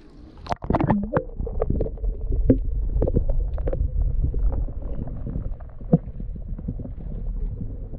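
A GoPro plunging into harbour seawater, with a sharp splash about half a second in, then the muffled low rumble of water around the submerged camera, broken by scattered clicks and knocks.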